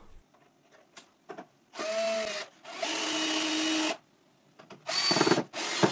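Cordless drill-driver driving screws to fasten a wooden stop block, in separate steady runs: a short one about two seconds in, a longer one of about a second, then more runs starting near the end. Before the first run there are only a few light knocks.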